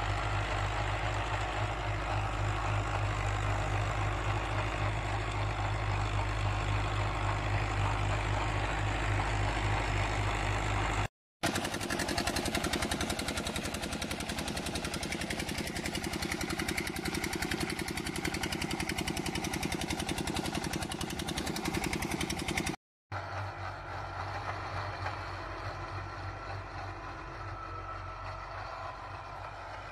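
Fiat 480 tractor's diesel engine running under load as it pulls a cultivator, with a steady low beat. About eleven seconds in, after a sharp cut, water gushes from a tubewell outlet pipe. Near 23 seconds, after another cut, a tractor engine runs more quietly.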